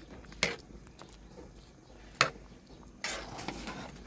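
Metal ladle knocking and scraping against a metal cooking pot while stirring kare-kare stew: a few sharp clinks, the loudest about two seconds in, with a short stretch of stirring noise about three seconds in.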